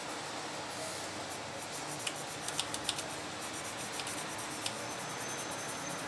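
Coloured pencil scratching on paper in short shading strokes over a steady hiss, with a quick cluster of sharp little clicks about two to three seconds in and a couple more later.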